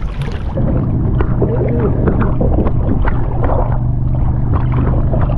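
Water sloshing and splashing around a swamped jon boat as it is pushed and dragged through the water, with a low steady hum underneath through the middle.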